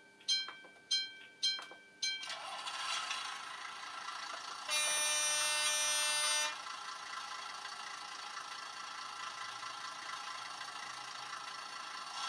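Model rail-road bus sound: five bell-like rings about half a second apart, then an engine sound starting up and running steadily, with a horn sounding for about two seconds in the middle.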